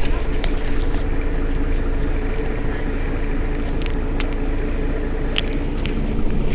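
Mercedes-Benz Citaro city bus engine idling steadily while the bus stands at a stop, with a few short sharp clicks over it.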